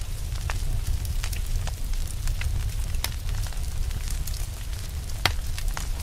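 Fire crackling: irregular sharp pops and snaps over a low, steady rumble. The loudest pop comes about five seconds in.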